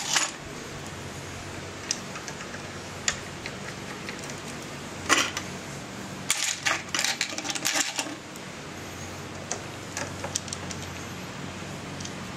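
Scattered small metallic clicks and taps as an Avid BB5 disc brake caliper, its bolts and washers are handled and fitted against a metal bracket, with a quick run of clicks in the middle. A faint steady low hum runs underneath.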